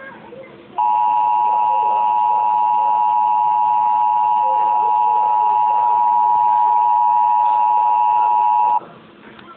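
Emergency Alert System attention signal: two steady tones sounded together (853 and 960 Hz), held for about eight seconds. It starts just under a second in and cuts off suddenly near the end. It is the alert tone that comes before an emergency alert message.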